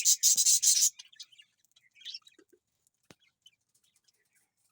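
Baby parrot calling in a quick run of shrill, rapid chirps for about the first second, then one brief faint chirp about two seconds in.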